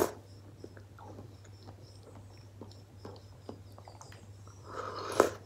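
Close-up eating sounds: a person chewing a spoonful of es teler (soft fruit in coconut milk and syrup), with many small wet mouth clicks. A louder slurp from the spoon comes near the end.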